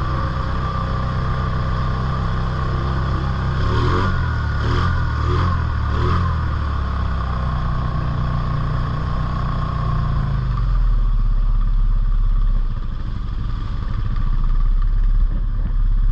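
ATV engine running under throttle, revving up and down a few times about four to six seconds in. After about ten seconds the steady engine tone gives way to a low rumble.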